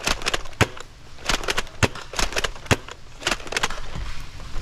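Irregular sharp snaps and clacks, several in quick succession, from foam-dart blasters firing during a Nerf skirmish.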